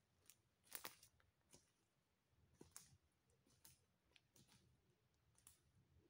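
Footsteps crunching through dry leaf litter, faint crackling strokes about once a second that grow weaker as the walker moves away.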